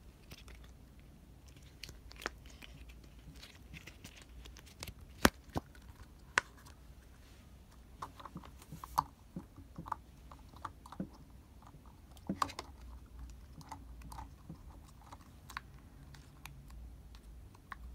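Silicone octopus pop-it fidget toys being pressed by hand, their bubbles popping in irregular soft clicks and snaps. One louder snap comes about five seconds in, and a quick run of pops follows a few seconds later.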